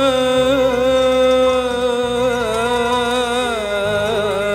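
A male solo voice singing a long, wavering melismatic note in Arabic devotional style, sliding down to a lower pitch a little after three seconds, over low sustained accompaniment chords that shift every couple of seconds.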